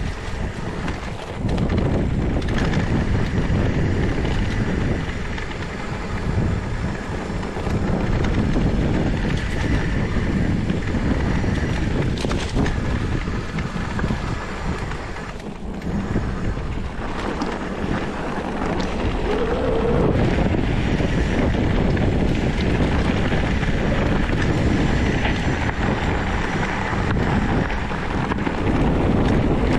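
Wind buffeting the microphone of a handlebar-mounted camera on a mountain bike being ridden: a steady loud rush and rumble, with a few knocks from the bike over rough ground.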